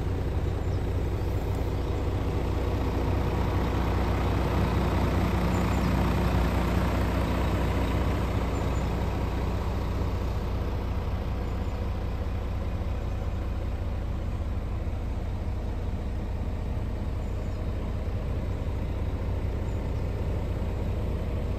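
Scania R450 truck's 13-litre inline-six diesel idling steadily with the truck standing still, heard from inside the cab.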